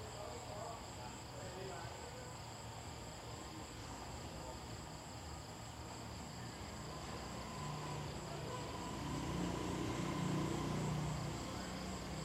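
Crickets trilling steadily, heard as two high, pulsing trills at different pitches. A faint low sound swells and fades again about two-thirds of the way through.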